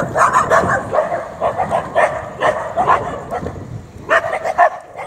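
Caramel-coloured street dogs barking aggressively at skaters, short sharp barks several a second, with a brief lull about three and a half seconds in before a few more.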